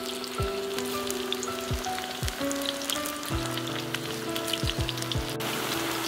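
Onion pakora batter frying in a large iron kadhai of hot oil: a steady crackling sizzle as handfuls of batter go into the oil. Background music with held notes and a deep drum beat plays over it.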